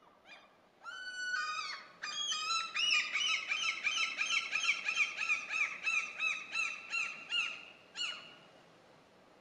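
Common gull (Larus canus) giving its long call: after a first call, a fast run of high, repeated calls at about four a second lasts some five seconds, then one final note.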